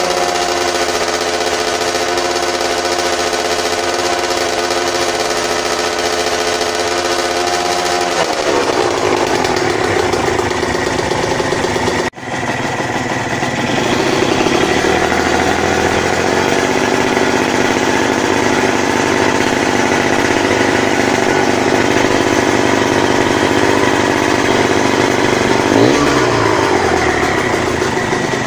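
Yamaha TZM 150's two-stroke single-cylinder engine running on the stand at a steady idle, its pitch shifting about eight seconds in. Near the end the throttle is blipped once, the revs rising and dropping back.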